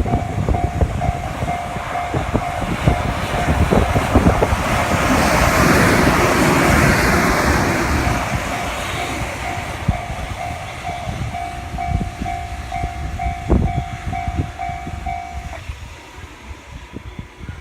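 Level-crossing warning bell ringing in even pulses while a train passes over the crossing, its wheels clacking over the rail joints; the train is loudest in the middle and then fades. The bell stops near the end as the crossing clears.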